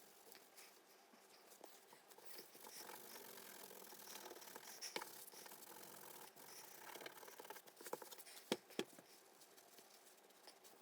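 Faint scratching and rustling of small objects being handled, with a few light clicks, the sharpest a quick pair near the end.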